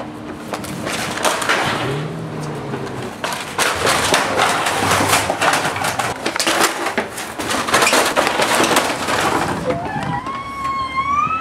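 Rough scraping and clattering of a cardboard box being pushed across a concrete walkway with a child riding in it. Near the end a high squeal rises and then drops sharply.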